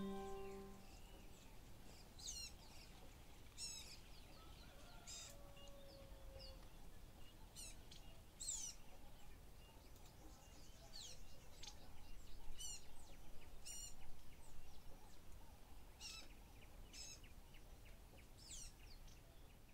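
Faint birdsong: short, high, quick chirps from small birds every second or so over a soft outdoor background hiss. The last notes of a music track die away in the first second.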